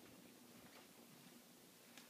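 Near silence: faint room tone with a low steady hum and a faint tick about three quarters of a second in.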